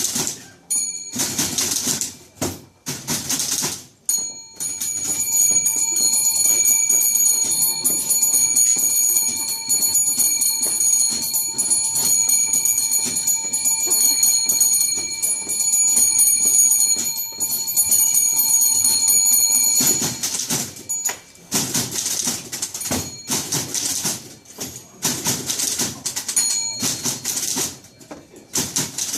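Typewriters played as percussion instruments, with rapid key clatter and loud rhythmic strikes. Through the middle stretch a steady ringing of bells sounds over continuous typing, and near the end it gives way again to separate loud rhythmic bursts.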